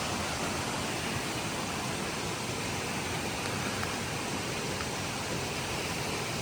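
Floodwater rushing in a normally near-dry spring-fed stream swollen by tropical storm rain: a steady, even roar of moving water.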